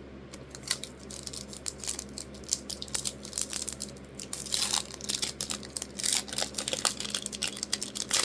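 Foil trading-card pack wrapper being crinkled and torn open, a dense, irregular run of sharp crackles.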